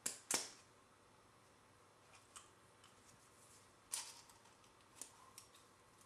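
Small handling clicks and taps: two sharp clicks right at the start, then scattered light ticks and a short rattling cluster as a waterproof match container is opened and stormproof matches are taken out.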